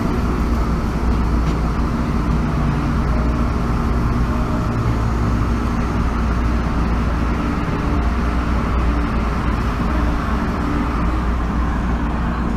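Steady running noise inside an MTR East Rail Line Metro-Cammell (MLR) electric train at speed: a low rumble of wheels on rail with the strong hum of its traction motors.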